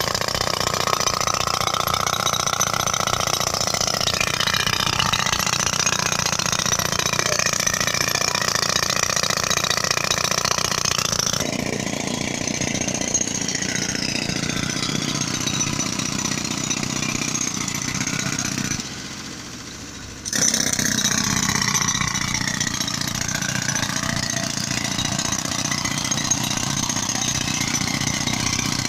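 Road-repair machinery running steadily: a portable air compressor's engine driving a pneumatic tool working on asphalt. The sound drops away briefly about two-thirds of the way through.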